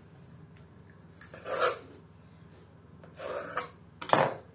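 Hands working a sticky yeast dough on a pastry board: three short rubbing, scraping sounds as pieces are pulled off, the last one sharpest, near the end.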